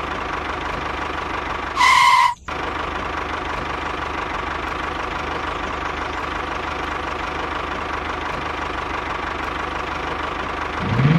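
Steady engine-like running noise from a miniature toy walking tractor as it drives. About two seconds in, a brief louder tone breaks in and cuts off suddenly, and near the end a sound rises in pitch.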